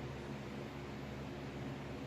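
Steady background hiss with a low, even hum underneath: room tone with no distinct sound events.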